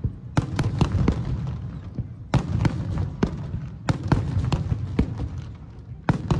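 Aerial firework shells bursting in a rapid, irregular volley: more than a dozen sharp bangs over a continuous low rumble.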